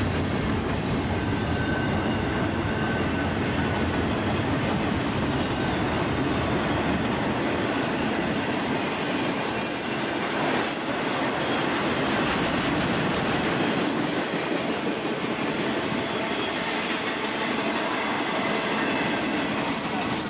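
A long freight train's cars rolling past at track speed: a steady rumble of steel wheels on rail with clickety-clack over the joints, and short high wheel squeals about halfway through and again near the end.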